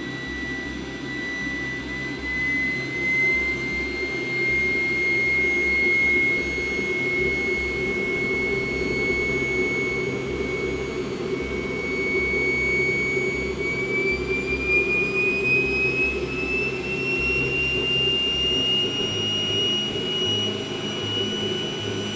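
Homemade electric jet engine running after ignition: the electric blower's high whine climbs slowly in pitch, stepping up about two-thirds of the way through, over a steady roar of propane burning in the combustion chamber.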